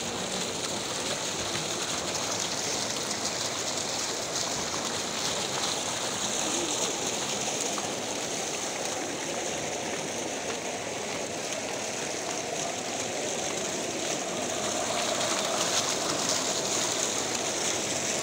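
Street fountain's water jets splashing into the basin, a steady rushing splash that gets a little louder near the end.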